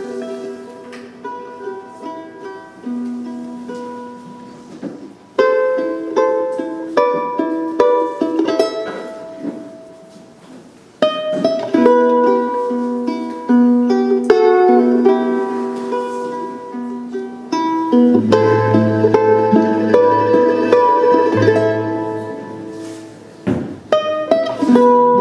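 Instrumental music of plucked string instruments, played in short phrases of decaying notes; low bass notes join about three-quarters of the way through.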